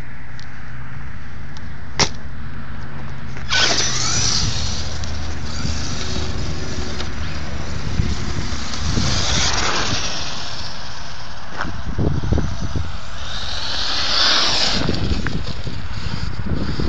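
Electric RC monster truck with a brushless motor (HPI Savage Flux HP) driving off on gravel and dirt: after a sharp click about two seconds in, the motor's high whine starts suddenly and rises and falls with the throttle, with tyre and gravel noise and wind rumbling on the microphone.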